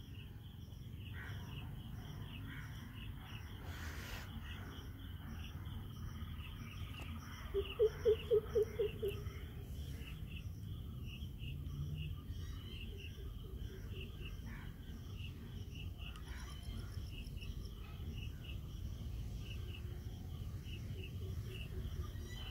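Insects chirping in a steady, regular pulsing chorus over a low outdoor rumble. About eight seconds in, a short run of about eight quick, low pulsing calls stands out as the loudest sound.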